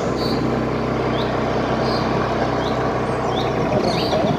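Steady outdoor rumble and hiss with a low hum under it, while a small bird gives short rising chirps over and over, roughly one every second.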